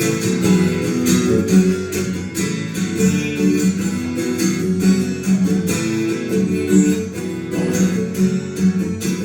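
Acoustic guitar strummed in a steady, even rhythm, an instrumental break between sung lines of a pop song.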